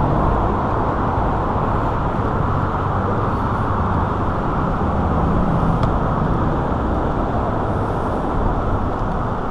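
Steady road noise of motor traffic: an even rumble and hiss that neither rises nor falls.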